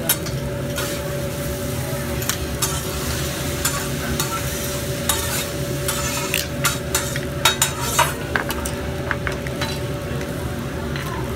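Metal hibachi spatula clicking and scraping on a hot teppanyaki griddle in a string of sharp taps, thickest in the middle of the stretch, over a steady background of griddle noise.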